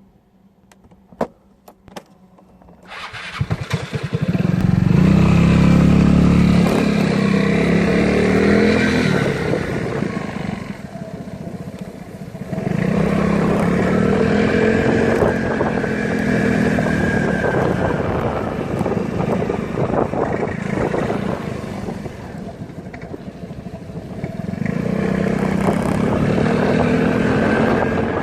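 Vespa GTS 250 i.e. scooter's single-cylinder engine under way, rising in pitch and easing off three times, with a clattering rattle that the owner says is worst when the scooter is cold. A few sharp clicks come before the engine sound swells about three seconds in.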